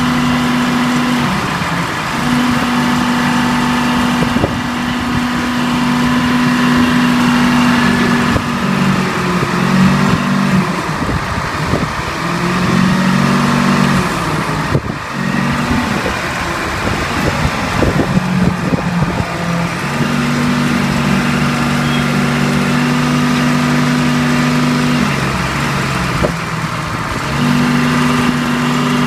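Badger 460 Hydro-Scopic excavator's engine running, its pitch dipping and returning several times as the engine speed changes.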